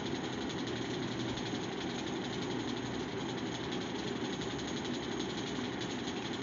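A steady mechanical running noise, like a small motor, with a faint fast rattle in it.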